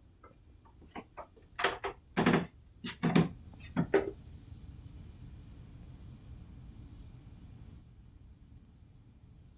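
A steady, high-pitched electronic-sounding tone, one unbroken pitch. It is faint at first, turns loud about three seconds in, and drops back to faint suddenly near eight seconds. A string of knocks and clatters sounds over it in the first four seconds.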